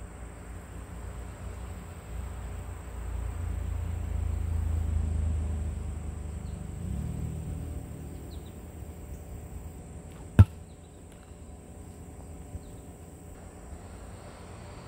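A sling-thrown rock strikes the wooden target or plywood backstop once about ten seconds in with a single sharp crack, the loudest sound here. Earlier a low rushing sound swells and fades.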